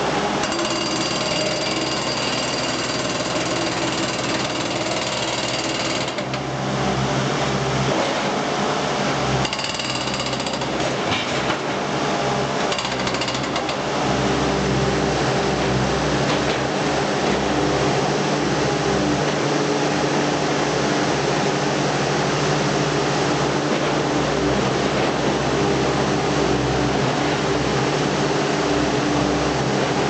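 Hydraulic breaker of a B800 demolition robot hammering rapidly and continuously against the refractory brick lining of a furnace, with the machine's hydraulics running underneath. A thin high whine rides over the hammering for about the first six seconds, and the hammering gets a little louder about halfway through.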